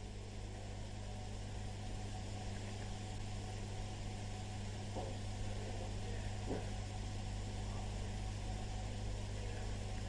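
Steady low electrical hum with an even hiss, the background noise of the broadcast recording between verses, with two faint ticks about halfway through.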